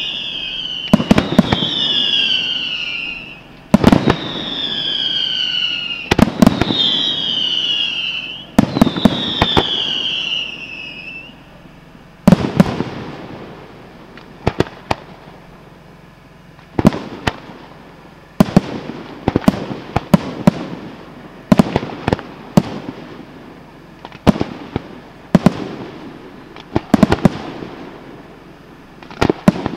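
Aerial fireworks shells bursting with loud bangs. For the first ten seconds or so, five whistles fall in pitch, each lasting about two seconds, among the bangs. After that come sharp reports, some in quick clusters, with crackling between them.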